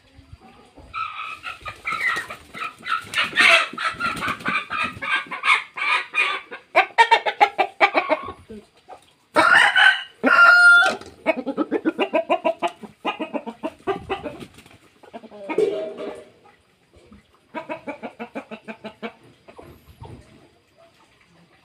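Chickens clucking close by in quick runs of calls, with one louder, longer call about ten seconds in.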